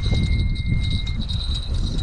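Wind buffeting the microphone in a loud, uneven rumble, with a steady high-pitched chirring in the background and a thin whistle-like tone that stops about a second in.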